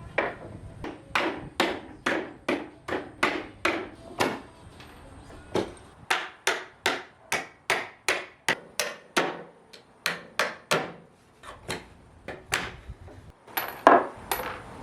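Hammer blows on pallet boards, knocking them so the nails pop out: a long, regular run of sharp strikes, about two a second, with a louder blow near the end.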